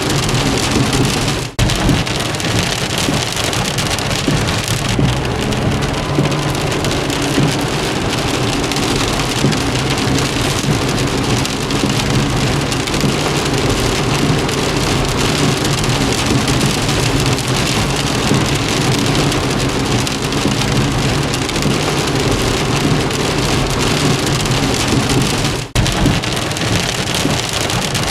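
Steady rain falling on a car, heard from inside it, with a low steady rumble underneath. The sound drops out for an instant twice, about a second and a half in and near the end.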